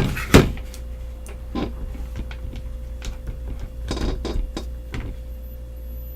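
Handling clicks and knocks as a charging cable is plugged into a phone and the power bank. The loudest is a sharp knock about half a second in, with smaller clicks around one and a half, four and five seconds in, over a steady low hum.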